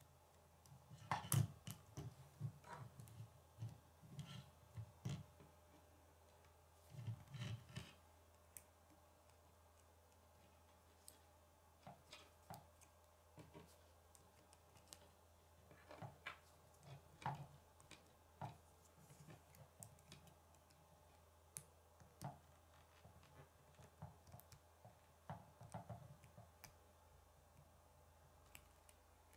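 K'nex plastic rods and connectors clicking and snapping together as they are handled and fitted, in irregular clusters of quiet clicks with pauses between them.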